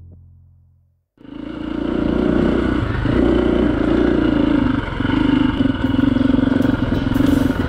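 Piano music fades out over the first second. Then a KTM 350 EXC-F single-cylinder four-stroke dirt bike engine is heard running at riding speed, its note dipping and rising a few times. A few sharp ticks come near the end.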